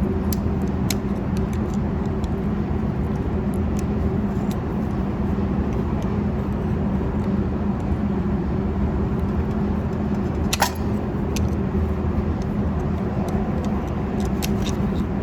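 Screwdriver working at a metal brake-line retaining clip, with scattered light metal clicks and one sharper click about ten and a half seconds in. A steady low hum runs underneath.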